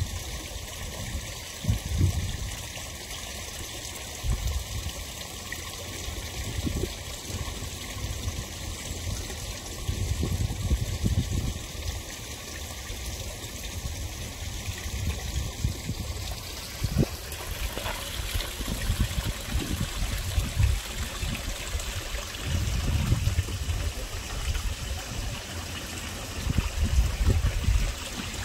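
Garden koi pond water trickling and splashing steadily, with irregular low rumbles underneath.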